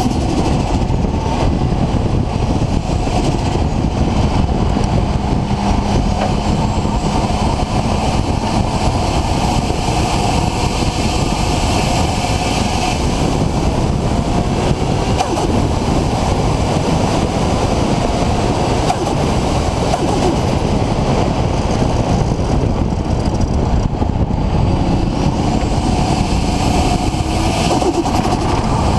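Nissan RB26 straight-six with a single Garrett GTX4088R turbo running, a loud, steady engine and road noise.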